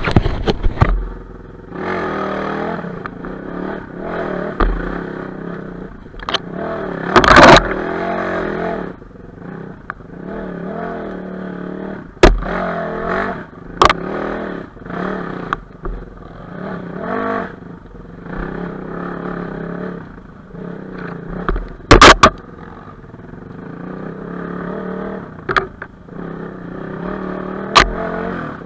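Enduro motorcycle engine revving up and down, rising and falling in pitch as the bike works over rough ground. Sharp knocks and clatter break in several times and are the loudest sounds.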